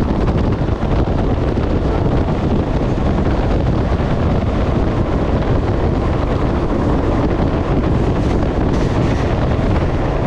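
A moving passenger train's running noise: the rumble of wheels on the rails under heavy wind rushing over the microphone, held at the carriage window. It is loud and steady throughout.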